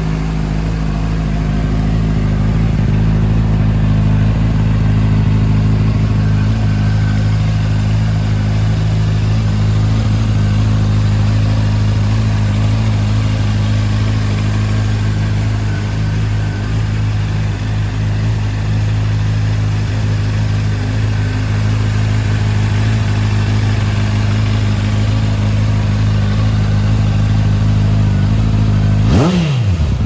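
2013 Honda CBR600RR's inline-four engine idling steadily through a Moriwaki aftermarket silencer. Near the end, a quick throttle blip revs it up and it drops straight back to idle.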